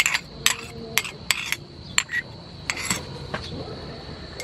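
Irregular sharp clinks and taps of a small sauce bowl and utensils against a frying pan, over the bubbling of river prawns simmering in sauce.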